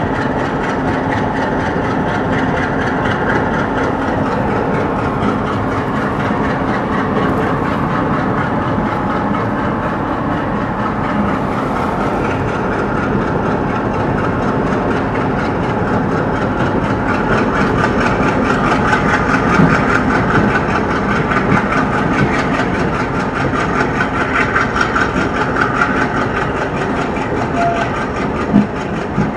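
Humsafar Express passenger train running on the line: a steady rumble and rattle of coaches on the rails, with one sharp knock near the end.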